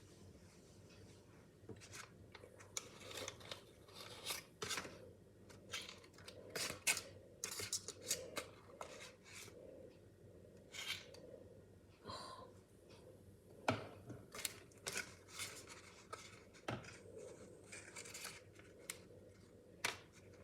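A spoon scraping and clinking against a bowl and paper cupcake cases as cake batter is spooned in: irregular short scrapes and taps, with two sharper knocks in the middle.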